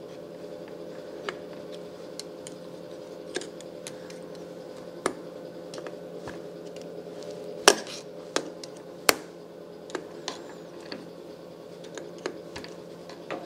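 Light metal clicks and clinks as steel gears and snap rings are fitted onto the shafts of a milling-machine gearbox with snap-ring pliers. Two sharper clanks come about eight and nine seconds in, over a steady low background hum.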